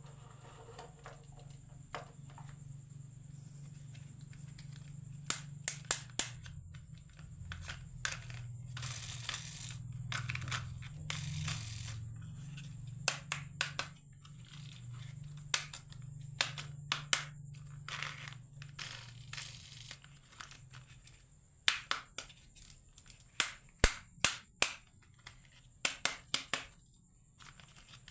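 Marbles rolling down a wooden HABA marble run: a low steady rolling rumble, with sharp irregular clacks as the marbles strike the wooden track and one another, coming in quick clusters.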